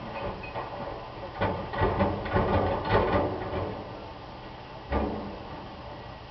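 Garbage truck loading rubbish: a burst of clattering and banging for about two seconds, then a single thump about five seconds in.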